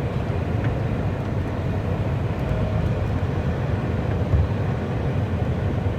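Steady running noise of a moving vehicle: a constant low rumble of engine and road.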